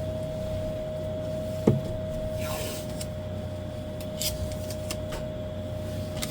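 Adhesive tape handled and stuck over holes in a grow-light housing, heard over a steady hum. There is a sharp knock about two seconds in, a short rasping rip just after it, and a few light clicks later.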